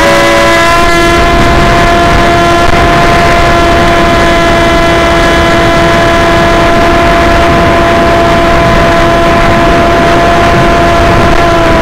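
Motor and propeller of an FPV model aircraft heard through its onboard camera: a loud, steady whine holding one pitch, over a rushing noise of wind.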